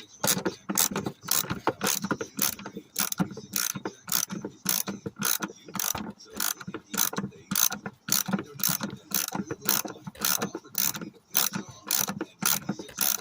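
Socket ratchet clicking steadily, about three clicks a second, as it backs out 10 mm metric screws holding a car's dash panel.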